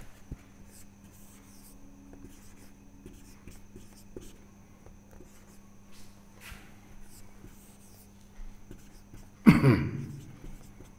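Marker pen scratching on a whiteboard in short strokes as numbers are written. About nine and a half seconds in comes a brief loud sound that falls in pitch.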